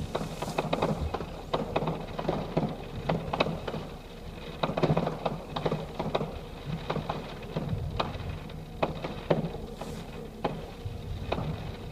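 Fireworks going off: a dense, irregular run of sharp pops and bangs, several a second, over a low rumble.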